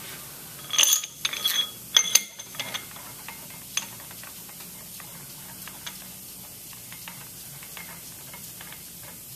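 Steel pump-head parts and a hand tool clinking together as the head is assembled: a cluster of sharp, ringing metal clanks from about one to two and a half seconds in, then light scattered ticking and clicking.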